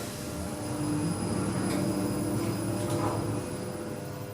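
Otis Gen 2 passenger lift car travelling between floors: a steady drive hum that swells in the middle of the run and eases off towards the end.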